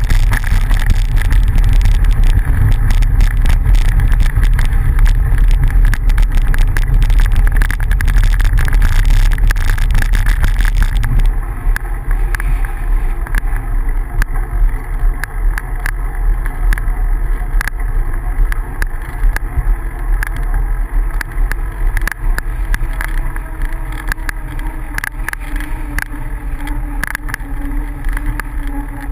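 Bicycle riding over a gravel road: heavy wind rumble on the microphone with rattling clicks from the tyres and bike. About eleven seconds in it gets quieter and smoother as the bike moves onto paved road.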